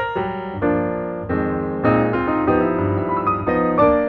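Background piano music: single struck notes and held chords.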